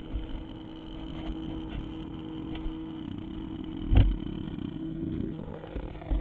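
Hexbug toy robot's vibration motor buzzing as it rattles against the walls of a box, with one sharp knock about four seconds in.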